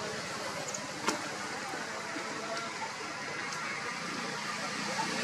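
Steady outdoor background noise, with one sharp click about a second in and a few faint high ticks.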